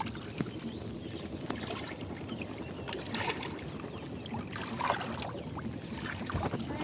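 Shallow muddy water sloshing and splashing as someone wades through it, with a few brighter splashes about three and five seconds in.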